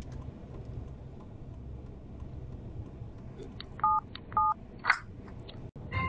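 Steady road noise inside a moving car's cabin at motorway speed, with two short two-tone electronic beeps a little over half a second apart about four seconds in, then a sharp click.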